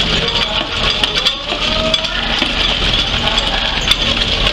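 Coffee pulper running steadily while pulping wet coffee cherries, giving a constant mechanical hum with a rattling clatter of beans.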